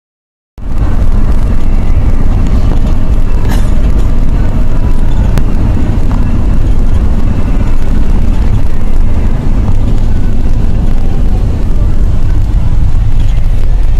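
Wind and road noise inside a moving car, with heavy low rumbling buffeting on the phone's microphone. It starts about half a second in and stays loud and steady.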